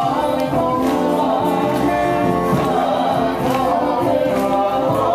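Music with a group of voices singing together in chorus, held notes at a steady level.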